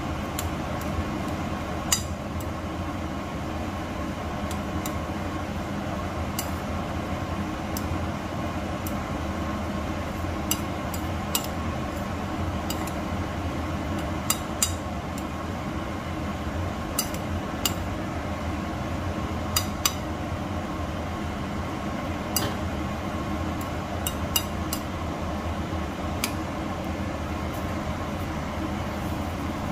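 A metal fork clinking against a ceramic bowl at irregular intervals as cooked rice is stirred together with beaten egg, over a steady background hum.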